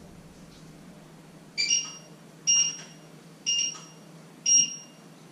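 Electronic alarm beeping: short, high, pitched beeps about once a second, starting about a second and a half in.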